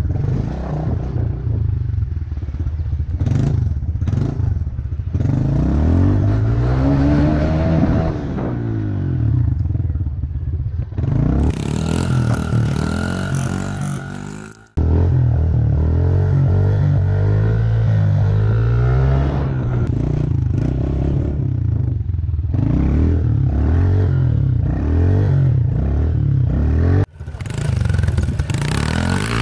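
Small pit bike engine being ridden, its note rising and falling as the throttle is worked. At times wind rushes over the microphone.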